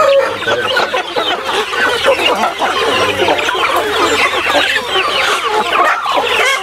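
A large flock of country chickens, hens, roosters and half-grown young birds, clucking and calling over one another continuously.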